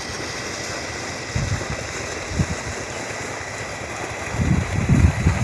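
Wind buffeting the microphone: a steady rushing hiss with irregular low rumbles that grow stronger about a second before the end.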